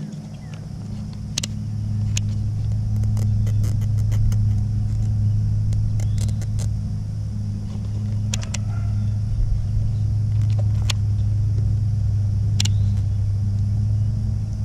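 A steady low motor hum that swells over the first two seconds and then holds, with scattered light clicks and taps of handling.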